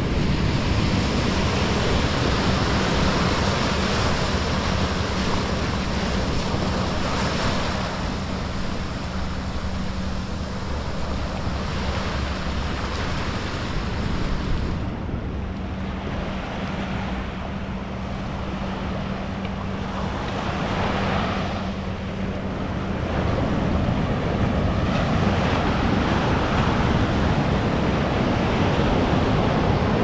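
Pacific Ocean surf breaking and washing up a sandy beach in a continuous roar. It is louder in the first few seconds, eases off through the middle, and swells again in the last several seconds as a larger wave breaks and foams up the shore.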